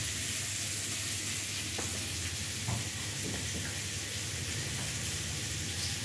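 Food frying in a wok on a lit gas burner: a steady sizzle, with a couple of faint knocks about two and three seconds in.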